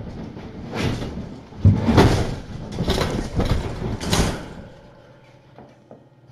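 Several bursts of scraping and rustling noise, loudest about two seconds in, dying away over the last second or two.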